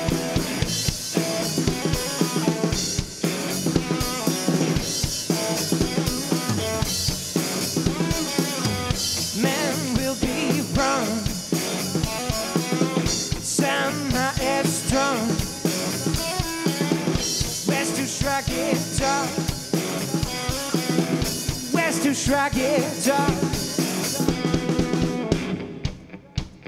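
Live garage rock instrumental: a drum kit played hard, with snare, bass drum and cymbals, under an electric guitar whose notes bend in pitch in the middle stretch. The playing drops away sharply near the end.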